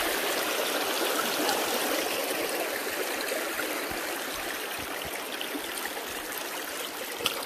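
Shallow creek rushing over a rocky bed: a steady rush of water that grows a little fainter, with one sharp click near the end.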